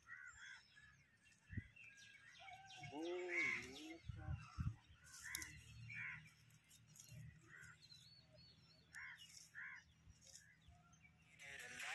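Faint birdsong: small birds chirping in many short, repeated calls, with a lower, drawn-out call about three seconds in.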